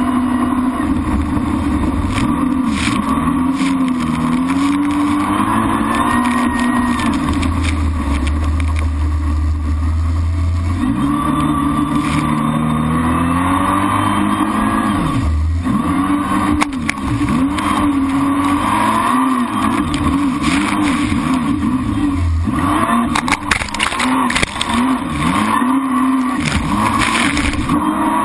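Jet ski engine running at speed, its pitch rising and falling over and over as the throttle and load change, with rushing water spray throughout.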